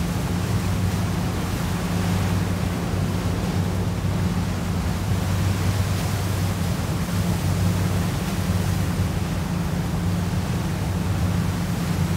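Large container ship passing close by: a steady low engine drone over an even hiss of water and wind.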